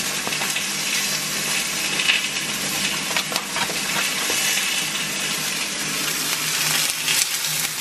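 Salmon fillets frying in oil in a cast-iron skillet: a steady sizzle, with a few faint clicks.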